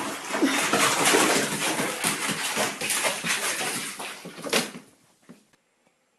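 A cat tumbling into a bathtub of water: a loud, noisy commotion of splashing and scrambling that starts suddenly and dies away about five seconds in.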